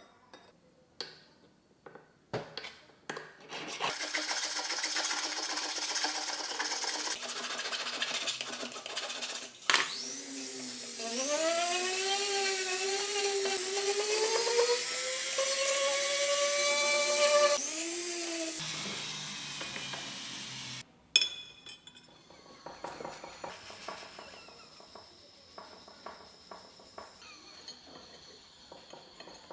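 Small handheld rotary tool cutting into a thin metal rod, its motor whine wavering and gliding up and down in pitch as the load changes. A steady hissing noise comes before it, with light taps of hand tools at the start and a sharp click and faint clatter afterwards.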